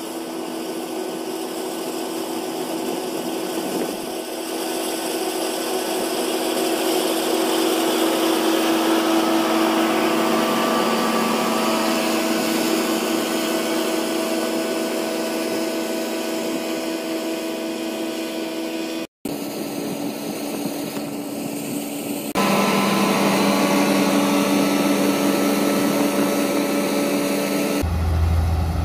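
Deutz-Fahr M 2385 combine harvester running steadily at work, a constant mechanical drone with a steady hum. The sound breaks off and changes level abruptly a few times, about two-thirds of the way in and again shortly after.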